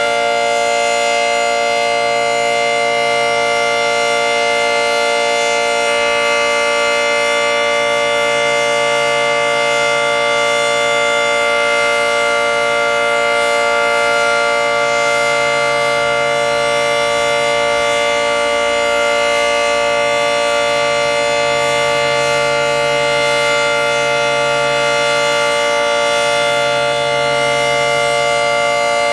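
Federal Signal 2T22 dual-tone outdoor warning siren sounding a loud, steady two-tone chord at full speed, its pitch holding level with no rise or fall.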